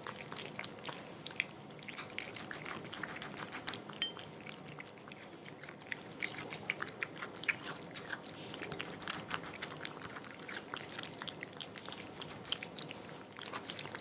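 Cat eating wet canned beef cat food: a continuous run of quick wet smacks and chewing clicks.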